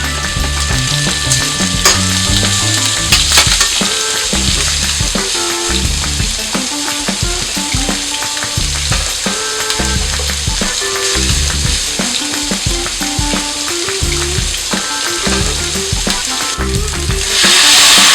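Pork hock sizzling as it fries in hot oil, with a couple of sharp clicks in the first few seconds; about a second before the end the sizzle suddenly grows louder and denser.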